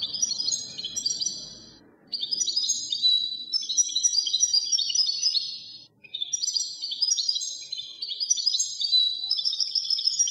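Bird song: rapid, high chirping and trilling phrases, with short pauses about two and six seconds in.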